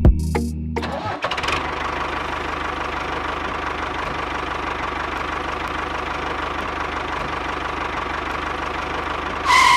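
A small motor running steadily with a fast, even ticking. A short, loud tone sounds near the end.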